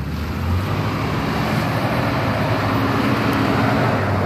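Toyota FJ Cruiser's engine running steadily while the 4x4 drives off-road, a low even hum under a steady rushing noise.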